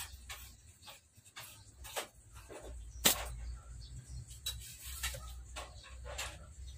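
Clicks, taps and knocks from hands working rubber bands and a homemade slingshot frame, with one sharp snap about three seconds in, over a low steady rumble. Farm animals call faintly in the background.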